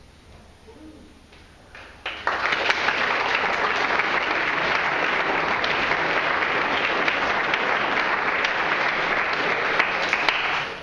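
Audience applauding: the clapping starts suddenly about two seconds in, holds steady as a dense patter of many hands, and drops away sharply near the end.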